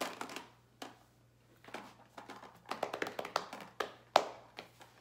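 Small plastic lip balm tubes clicking and tapping against one another and their case as a hand sorts through them, with a sharper click a little after four seconds in.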